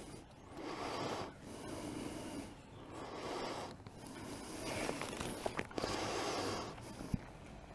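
Leather jacket rustling close against the helmet camera's microphone as the rider moves, in repeated soft swells, with a few small clicks about two-thirds of the way through.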